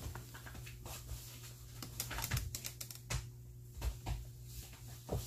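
Plastic tarp crinkling and rustling under the paws and bodies of two dogs play-wrestling, in irregular clicks and scuffs, over a steady low hum.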